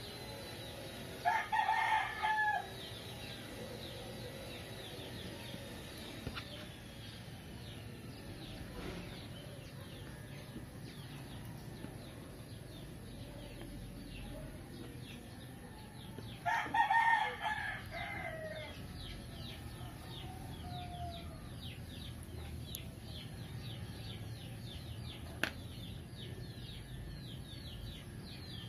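A rooster crowing twice, about a second in and again about halfway through, the second crow trailing down in pitch at its end. Faint, rapid high chirping runs on throughout.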